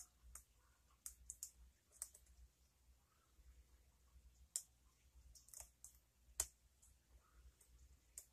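Irregular small metallic clicks and ticks of a hook pick and tension wrench working the pins inside the "Only Pins" lock by Fast Charlie, with a few sharper clicks standing out.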